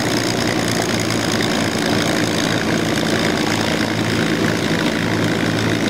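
P-51D Mustang's Packard Merlin V-12 engine running steadily at low taxi power, propeller turning, an even drone that holds one pitch.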